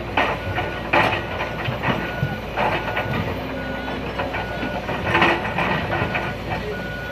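Excavator running with its travel alarm beeping steadily, one short beep about every 0.8 s, over the engine noise. Several louder bursts of clatter come and go, the loudest about five seconds in.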